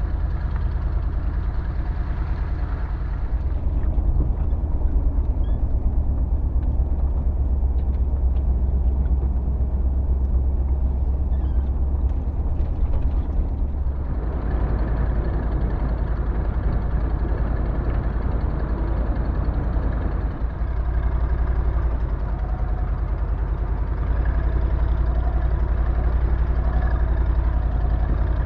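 A vehicle's engine running with a steady low drone, its tone changing about three seconds in and again about fourteen seconds in.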